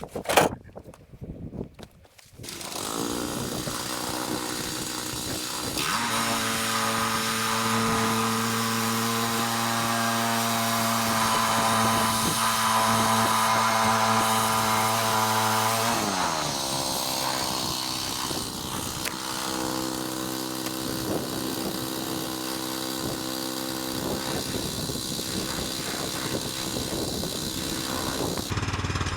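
A 7-horsepower engine on a Woodland Mills 122 bandsaw sawmill comes on suddenly about two seconds in and runs up to speed. About halfway its pitch drops as the band blade takes load in a cherry log, and it keeps running steadily through the cut.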